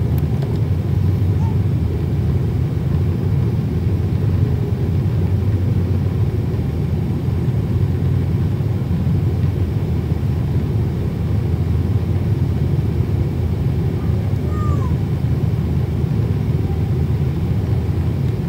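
Steady low cabin noise of a jet airliner in flight during descent: engine and rushing-air noise heard from inside the cabin at a window seat over the wing.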